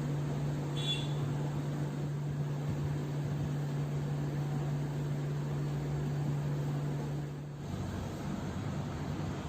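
A steady low machine hum over a haze of noise, changing to a different, lower-pitched hum about three-quarters of the way through.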